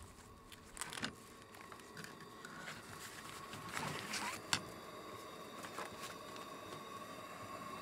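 Plastic grocery bags rustling and camp gear being handled, with light clicks and knocks and one sharp click about four and a half seconds in. A faint steady tone comes in from about three seconds on.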